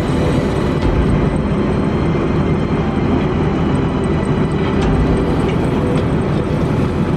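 Kobelco SK200 crawler excavator's diesel engine running steadily while it works.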